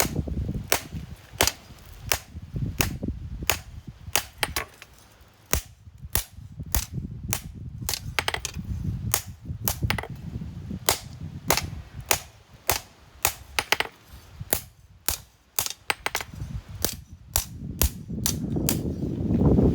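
Hammer blows on steel at an anvil while forging a knife blade: sharp ringing strikes, irregular at about two to three a second, over a low rumble.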